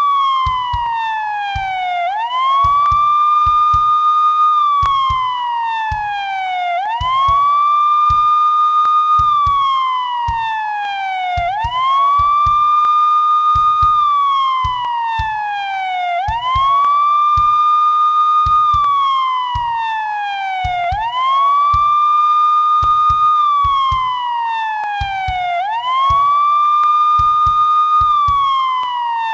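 Police siren sounding a repeating wail: each cycle sweeps quickly up, holds its high pitch for about a second and a half, then slides slowly down over about two seconds before rising again, roughly six cycles in all.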